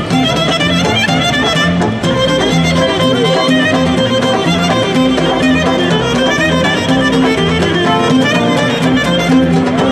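Live Greek folk dance music led by a violin, with a lute accompanying, playing steadily for a circle dance.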